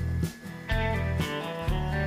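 Background music: a guitar track with a steady beat.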